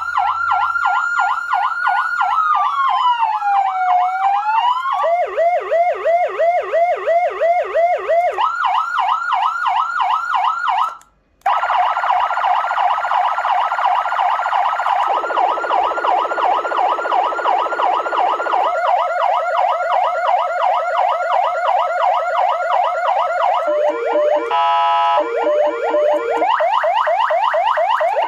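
PA3000 400W electronic siren through its speaker, stepping through its tones: a slow wailing rise and fall, then several fast yelping and warbling patterns that change every few seconds. It breaks off briefly about eleven seconds in, and a short horn-like blast comes near the end.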